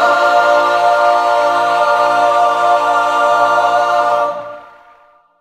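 Music: a choir of voices holding one final chord for about four seconds, then fading away near the end.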